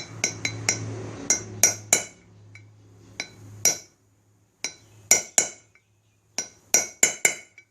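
A hammer striking a sharpened center punch into the steel bearing seat of a front wheel hub: about fifteen light metallic taps with a high ring, in small irregular groups. The punch marks raise the metal of a worn, loose bearing seat so the bearing will fit tight again.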